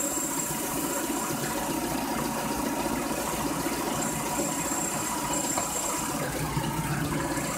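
Peugeot car engine idling steadily, with a faint steady whine above it. It is being run to circulate the coolant and bleed air out of the cooling and heater system.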